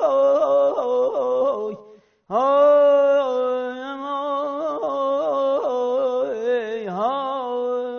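A man singing Persian classical avaz unaccompanied: rapid trilled tahrir ornaments, a short break about two seconds in, then a long held note with a wavering ornament near the end.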